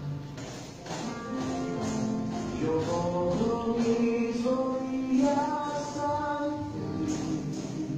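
Spanish-language Christian worship song playing, with held melodic notes stepping upward over a light percussion beat.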